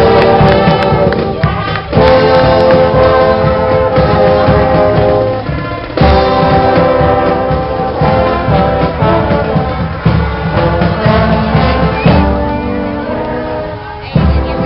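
Marching band's brass section playing a tune in held chords and phrases, dropping off briefly about two seconds in and again around six seconds.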